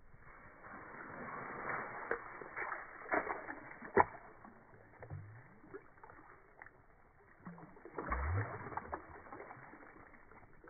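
Slowed-down, deep-pitched splashing and sloshing of water and slush in an ice-fishing hole as a released fish drops in, with a sharp knock about four seconds in and a low gurgling splash near eight seconds.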